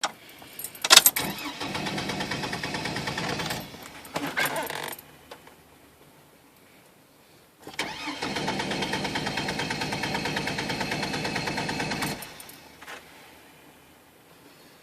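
Chevrolet Trailblazer's starter cranking the engine in two tries: a click, a few seconds of even cranking, then a second longer crank of about four and a half seconds that cuts off. The engine does not fire, an intermittent no-start.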